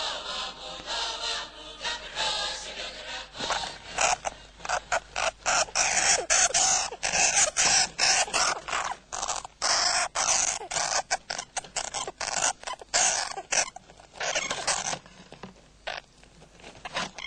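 Choral music ending about three seconds in, followed by a caged pet rodent scratching and scrabbling: a rapid, irregular run of scratching noises.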